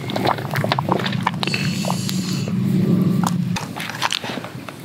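Small wood fire crackling with many sharp pops under a steaming saucepan of water, over a steady low rumble that stops suddenly about three and a half seconds in; a brief hiss comes about two seconds in.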